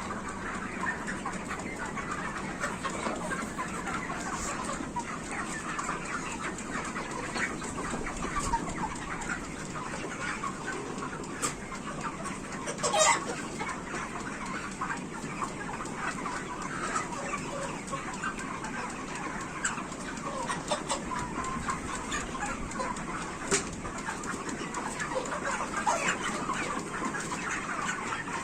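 A large flock of broiler chickens clucking and chattering continuously. One brief, louder sharp sound stands out about halfway through.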